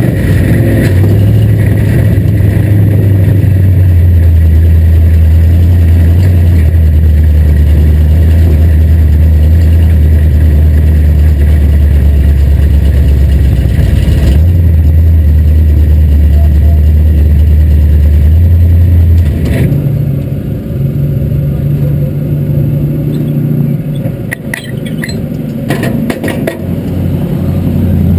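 Race car's 355 crate small-block V8 running loud and steady. About two-thirds of the way through it drops to a quieter, uneven idle, with a few short clicks and rattles near the end.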